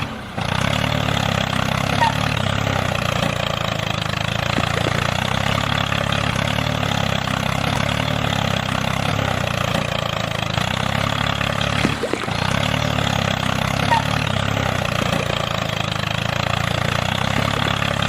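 Small engine running steadily at idle, broken off briefly at the start and again about twelve seconds in.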